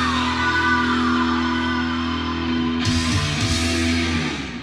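Heavy rock music with sustained, distorted electric guitar notes and a sliding guitar line, fading out near the end.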